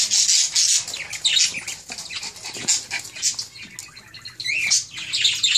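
Several small dogs moving about on a hardwood floor, their claws making quick irregular clicks and scratches, with a short high whine about four and a half seconds in.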